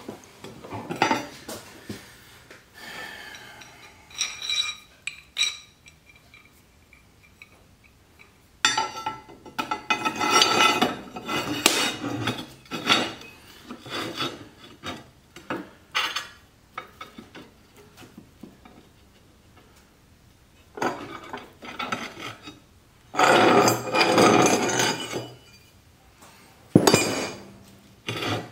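Steel plates being shifted and scraped against each other on a workbench, with metal clinks, in irregular bursts of a second or two and a sharp knock near the end.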